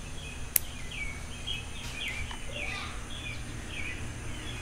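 A single sharp snip of bonsai scissors cutting a twig about half a second in, over birds chirping repeatedly and a steady low background rumble.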